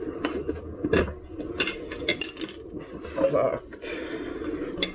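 Metal clinks and knocks from hand work on an electric unicycle wheel during a tyre change. There is a cluster of quick knocks about two seconds in, a short scraping rub a little after three seconds, and one more sharp click near the end.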